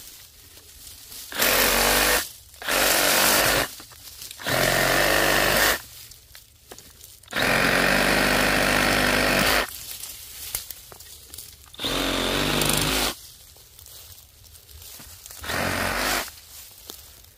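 Bauer 20V brushless compact reciprocating saw with a 9-inch Diablo pruning blade cutting through saplings and branches, run in six short bursts with pauses between.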